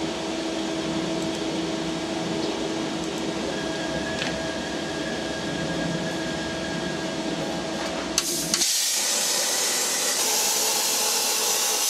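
Steady hum from the CNC plasma table while the torch is lowered to the plate; about eight and a half seconds in, after a click, the plasma torch fires and a louder steady hiss of air and arc takes over as it cuts a straight test line in thin steel plate at 30 amps.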